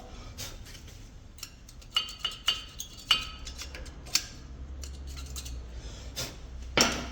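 Metal tools clicking, scraping and clinking on a brake caliper carrier's pad slides as loose dust is cleaned off. A few short metallic rings come about two to three seconds in, and a sharper click comes near the end.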